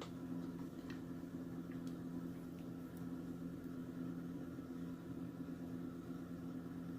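Steady low mechanical hum with a few faint, light ticks of small metal lock pins and tweezers being handled.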